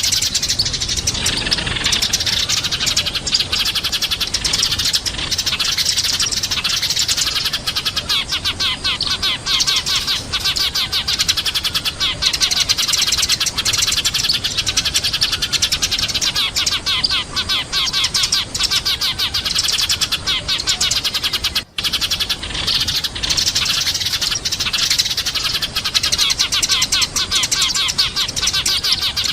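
Eurasian tree sparrows chirping in a continuous stream of rapid, high chirps, broken by a brief gap about two-thirds of the way through.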